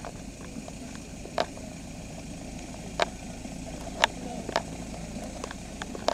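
Heavy truck engine running steadily with a low rumble. A handful of sharp, brief knocks stand out above it, about six in all.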